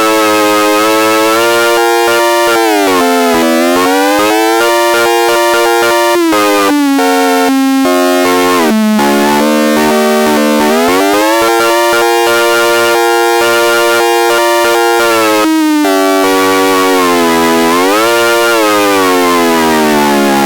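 ACA Hurricane siren sounding a loud, steady wail. Its pitch dips and climbs back up several times: about three seconds in, again around the middle, and late on, and it falls away near the end.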